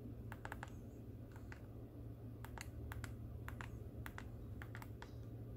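Keys of a TI-Nspire CX CAS graphing calculator being pressed: a string of soft clicks, many in quick pairs, as a division is typed in. A low steady hum runs underneath.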